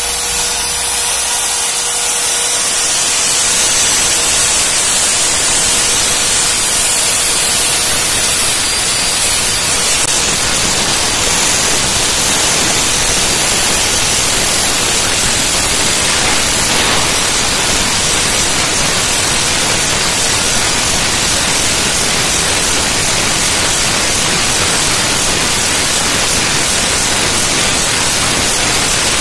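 Trim-router spindle of a homemade CNC router running at high speed, its 2 mm straight bit engraving a pocket into a foam sheet. It makes a loud, steady hiss.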